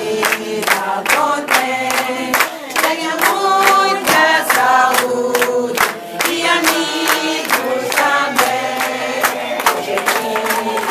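A group of men and women singing together in chorus, with steady rhythmic hand-clapping at about three or four claps a second.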